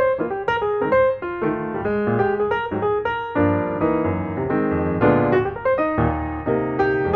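Background piano music, a quick run of notes over sustained chords.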